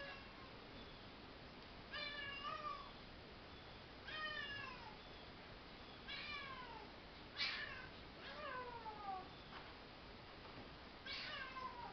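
A pet's repeated short cries during rough play, about six in all, each one falling in pitch.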